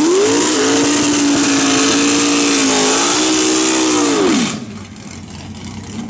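Drag car doing a burnout: the engine revs up sharply and holds at high revs while the rear tyres spin and hiss on the pavement. About four and a half seconds in the revs drop quickly and the tyre noise stops, leaving the engine running at a lower, uneven note.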